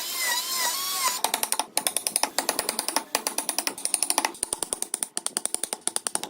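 Wood being worked with a hand tool for about a second, a rasping sawing sound. It is followed by a fast, even run of sharp taps, roughly eight to ten a second.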